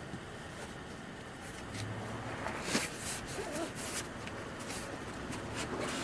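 Rustling and scattered small clicks of bags, straps and gear being handled over an inflatable kayak, the handling noise getting busier about halfway through.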